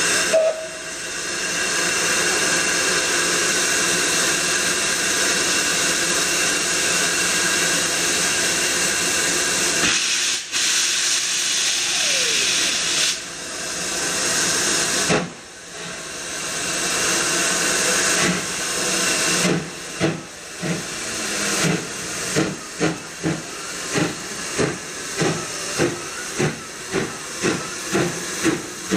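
Steam locomotive with a loud steady hiss of escaping steam, from open cylinder drain cocks. About two-thirds of the way in, exhaust chuffs start and become regular, about one and a half a second, as the engine moves off under steam.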